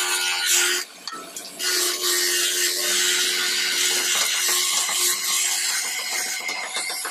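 Wooden blank spinning on a wood lathe while a hand-held chisel cuts along it, giving a steady cutting noise as shavings come off. The cutting drops out briefly about a second in, then carries on.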